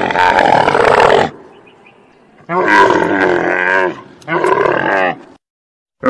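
A camel calling with its mouth open: three loud, drawn-out calls. The first ends about a second in, the second lasts about a second and a half, and the third lasts about a second, with short quiet gaps between them.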